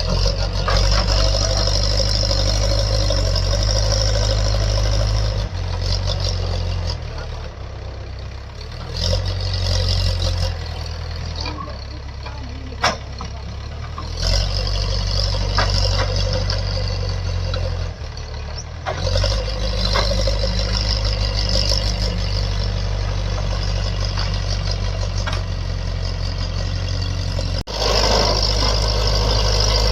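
Diesel engine of a backhoe loader at work, running up under load and dropping back to a lower speed several times. There is one sharp knock about halfway through.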